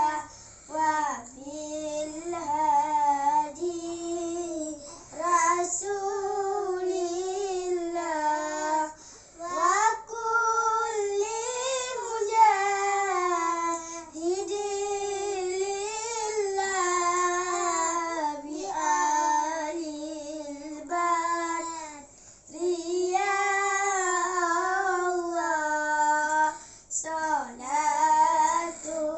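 Young boys singing salawat, an Islamic devotional chant, unaccompanied, in long wavering phrases with short breaks between them.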